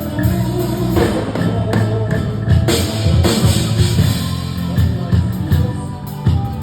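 A band playing through a sound check, with a drum kit keeping a steady beat over sustained low notes.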